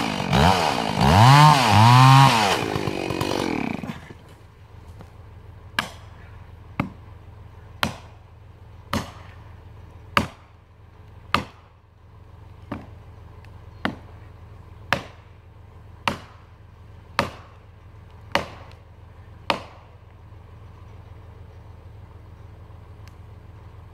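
Chainsaw cutting into the trunk of a messmate eucalyptus, revving up and down twice before it stops about four seconds in. Then thirteen sharp blows about a second apart, hammer strikes on a metal felling wedge driven into the cut to tip a back-leaning tree.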